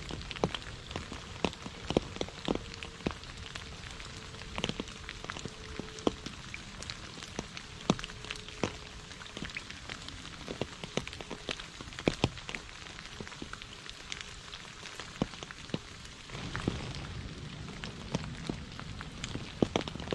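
Rain falling on a puddle and wet leaves: a steady patter with frequent sharp drips of single drops. A low rumble swells in near the end.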